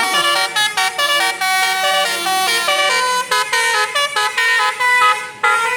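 Telolet Basuri musical bus horn playing a quick melody of stepped notes, several horn tones sounding together, with a brief break about five seconds in.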